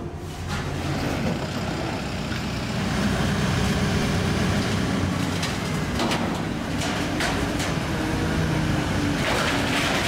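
A heavy machine's engine running steadily, with a few sharp metallic knocks from about six seconds in.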